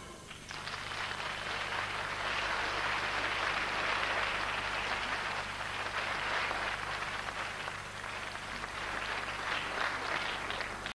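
Audience applauding steadily, starting just after the dance music stops, with a faint steady low hum underneath.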